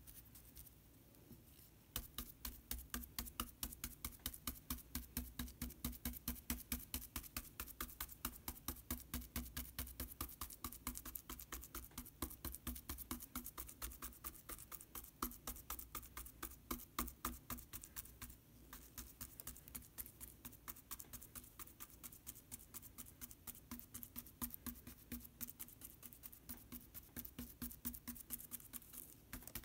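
A paintbrush dabbing or stroking paint onto a surface in a quick, even rhythm of about four soft taps a second, starting about two seconds in.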